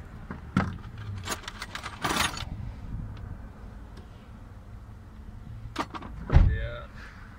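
Metal clicks and clinks of needle-nose pliers working the hose clip on a fuel pump module, with a short scraping rustle about two seconds in. A dull thump comes just past six seconds, the loudest sound here, as the hose is pulled.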